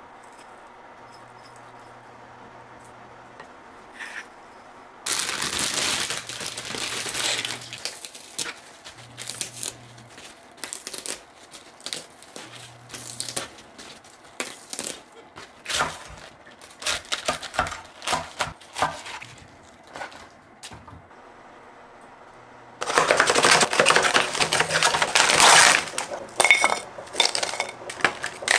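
Napa cabbage leaves being snapped off the head and torn, a run of crisp cracks and crackles after a quiet start. Near the end comes a second loud crackling, rustling stretch of about three seconds.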